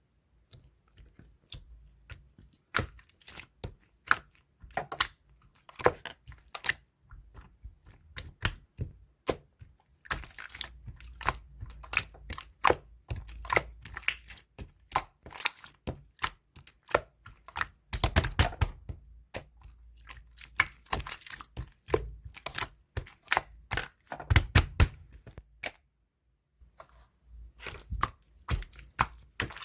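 Slime being squeezed, stretched and poked by hand, giving irregular sticky clicks, crackles and pops, with a brief pause near the end.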